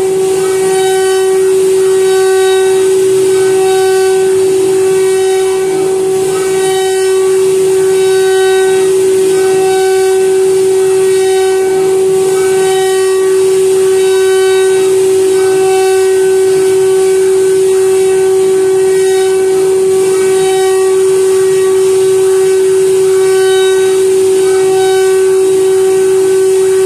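CNC router spindle running with one steady high-pitched whine while its end mill cuts into a wooden board. A rasping cutting noise rises and falls over the whine about every two seconds as the bit works along its path.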